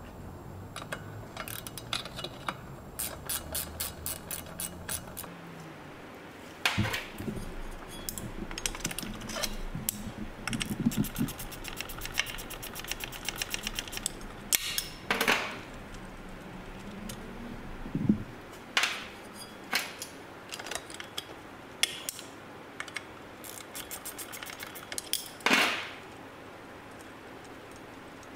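A 12 mm wrench working the bolts of a driveshaft's rear U-joint flange: two runs of rapid, even ratcheting clicks, with metal clinks of the wrench and a jammed screwdriver against the joint and several louder knocks.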